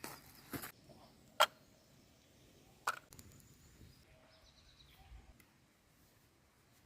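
A few sharp knocks or clicks, the loudest about one and a half seconds in, then a faint high chirp falling in pitch.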